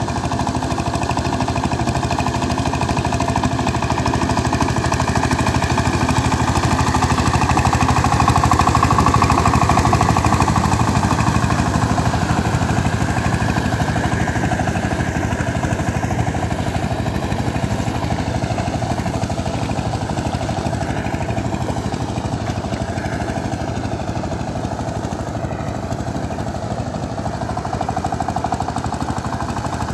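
Power tiller's single-cylinder diesel engine running with a fast, even chugging as it works through a flooded paddy field on a trial run after repair. It is loudest about a third of the way in, as the machine passes close, then fades a little as it moves away.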